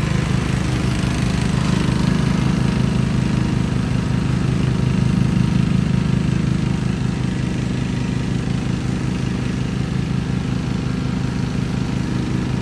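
Simplicity Coronet rear-engine riding mower running steadily while mowing grass, engine and cutting deck under load.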